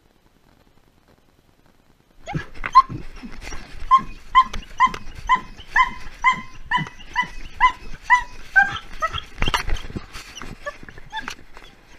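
A dog yipping in a quick series of short, high barks, about two a second, starting about two seconds in and turning irregular later on, with scattered knocks and one heavy thump near the end.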